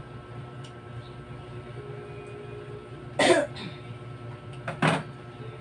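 A person coughing twice, about a second and a half apart, over a steady low hum.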